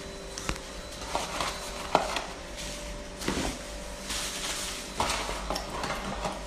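Fast-food restaurant clatter: scattered knocks and clinks of trays and dishes, the sharpest about two seconds in, over a steady hum.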